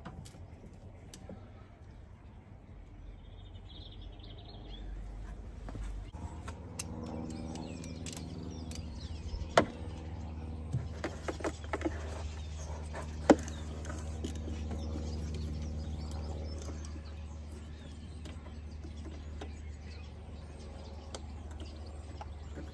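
Hand tools clinking and tapping on metal while bolts on the EGR valve pipework of a Mercedes Vito diesel engine are undone, with a few sharp clicks, two standing out. From about six seconds in, a steady low hum sits underneath, and a bird chirps briefly early on.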